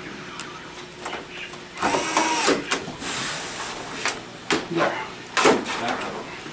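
Cordless electric screwdriver whirring for about a second, about two seconds in, as it drives a screw into the TV's plastic back cover. Sharp clicks and knocks of the tool and hands on the cover come before and after.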